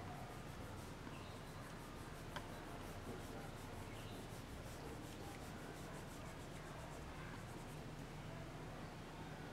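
Red crayon rubbing on paper in quick back-and-forth shading strokes, faint and steady, with one small tick about two and a half seconds in.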